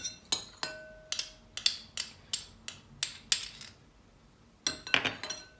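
A spoon clinking against a bowl while syrup and lemon juice are spooned in for a dressing: about a dozen quick ringing clinks, a short pause, then a few more near the end.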